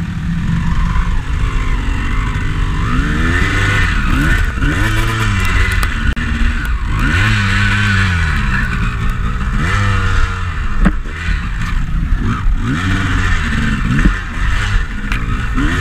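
Enduro dirt bike engine revved in repeated short blips, each rising and falling about once a second, while the bike is stuck on a steep slope being pushed and hauled up. A single sharp knock comes about two-thirds of the way through.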